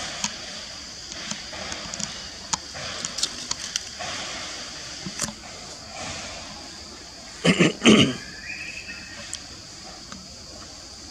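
Tropical forest ambience: a steady high hiss with scattered light clicks, and two loud short bursts close together a little past the middle.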